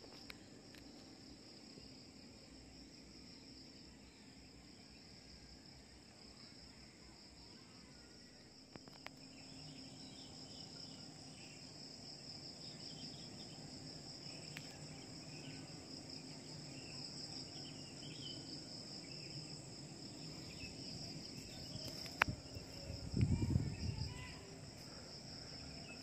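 Steady high-pitched drone of an insect chorus, with a short low noise and a click near the end.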